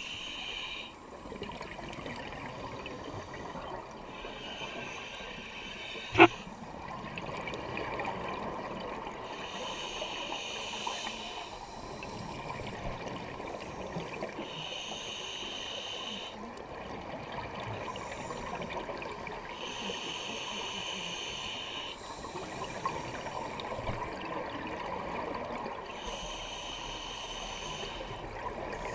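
Scuba breathing heard underwater: exhaled bubbles rush from the regulator in bursts about every four to five seconds, over a steady crackling background. A single sharp click comes about six seconds in.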